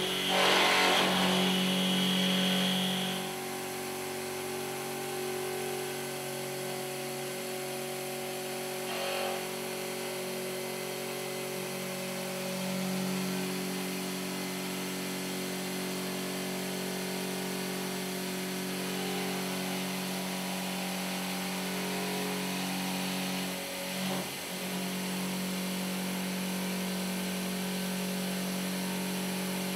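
Milling spindle of a Voortman V310 plate-processing machine cutting a contour in steel plate: a steady machine hum with a level drone under it. It is louder, with a high whine, for the first three seconds.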